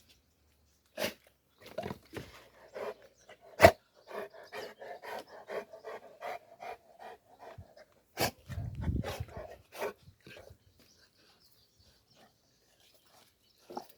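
Cats scuffling: a few sharp knocks, and a quick series of short animal sounds, about three a second, in the middle stretch.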